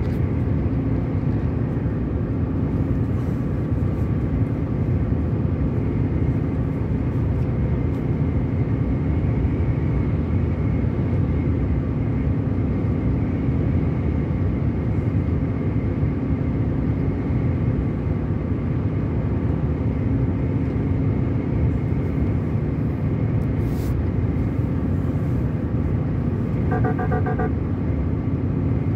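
Car driving at a steady speed: continuous engine and tyre noise with a steady drone. A short run of beeps comes near the end.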